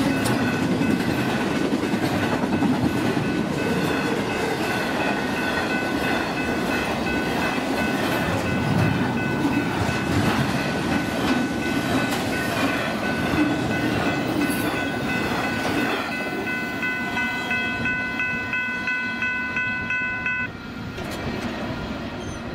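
BNSF double-stack intermodal freight cars rolling past at speed with a steady rumble and rattle, over a grade crossing's ringing bell. The train's end goes by about 16 s in, leaving the crossing bell ringing in quick strokes. The bell stops about 20 s in.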